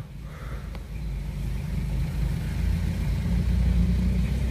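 2017 Toyota Vios engine idling with an uneven, wavering drone: a rough, unstable idle.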